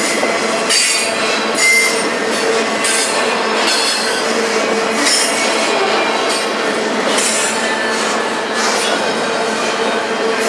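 Double-stack intermodal well cars rolling past on the main line: loud, steady steel-wheel-on-rail noise with a sustained tone and short bursts of hiss recurring every second or two as the wheel sets go by.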